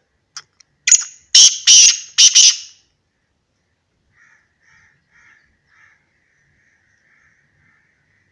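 Black francolin giving its loud, harsh call: a phrase of about five notes over roughly two seconds, starting about half a second in. A faint run of short, evenly pitched notes follows in the second half.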